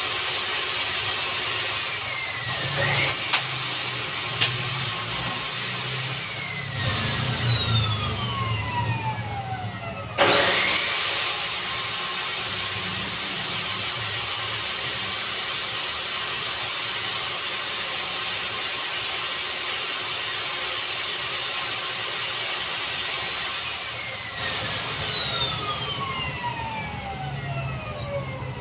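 A high-speed electric power tool whining at full speed. It is briefly eased off and spun back up about three seconds in, then released to wind down slowly. About ten seconds in it starts again and spins up within a second, runs steadily for some thirteen seconds, and is released to coast down near the end.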